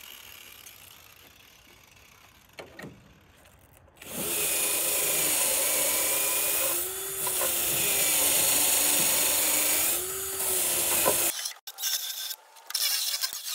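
Cordless drill spinning a wire brush wheel against rusty steel body panel, scrubbing off rust: a loud, steady whirring grind that starts about four seconds in and runs for about seven seconds, easing off briefly twice before stopping, followed by light scraping and clicks.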